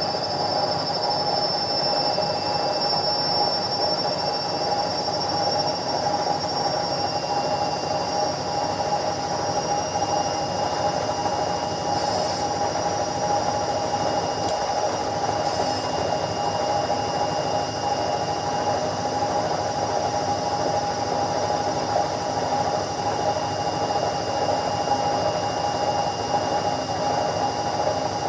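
Indesit 71252 washing machine running steadily: a constant hum with a thin high whine held on top.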